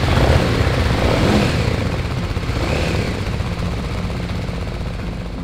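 Several police patrol motorcycles' engines running together, a steady low rumble that slowly grows quieter.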